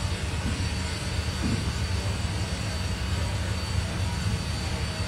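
Steady low rumble with an even hiss over it: the background noise of a parking garage, heard through a phone recording.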